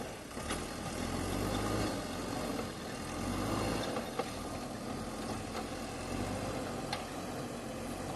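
JCB 3DX backhoe loader's diesel engine running steadily, with a few short knocks.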